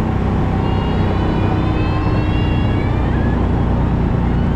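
Kawasaki Mule 3010 utility vehicle's V-twin engine and drivetrain running steadily under way, with tyre and wind noise from the open cab, on a test drive for a reported bog at full throttle.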